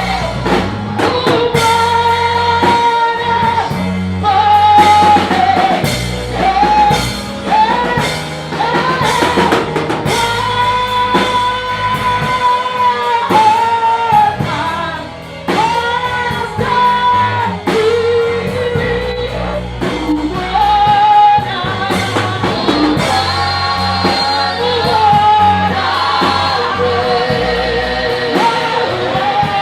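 Swahili gospel worship song sung by a group of singers, holding long notes over a band of drum kit, guitar and bass.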